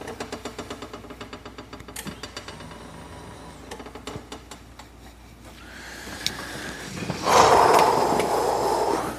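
Furniture height-adjustment mechanism working: a run of fast, even clicks over the first few seconds, then a louder whirring rush for the last two seconds.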